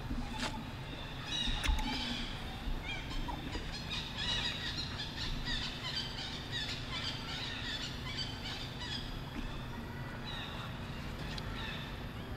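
Outdoor ambience full of short, high chirping calls, thickest in the first part and thinning out after about nine seconds, over a steady low rumble.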